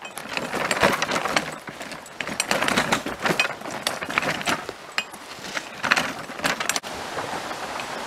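Folding utility wagon loaded with a bucket of firewood, rattling and clattering as it is pulled over rocky gravel. Near the end this gives way to a steady rush of flowing water.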